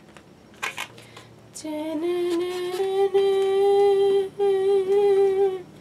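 A person singing one long held note that rises slightly at the start, with a short break about four seconds in before the note carries on.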